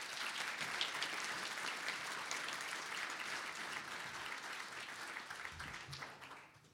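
Audience applauding, a room full of seated people clapping steadily, fading away near the end.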